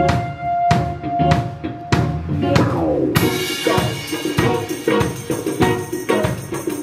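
Live band playing an instrumental passage: a drum kit keeps a steady beat under electric bass and keyboard. A held keyboard note fades out about two seconds in, and a wash of cymbals comes in suddenly about a second later.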